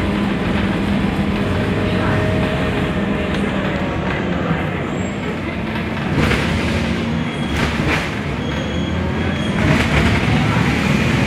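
Interior of a moving Scania articulated bus: a steady engine drone and road rumble. A few knocks and rattles come about six, seven and a half, and nearly ten seconds in.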